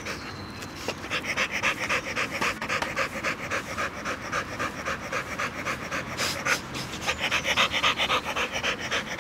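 A dog panting fast and evenly, about five breaths a second, as it digs in sand: the hard panting of a dog tired out from digging.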